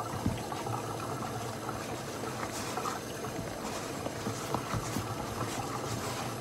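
Hand mixing cornmeal and flour dumpling dough in a plastic bowl: many light taps and clicks of hand and dough against the bowl, over a steady low hum and hiss.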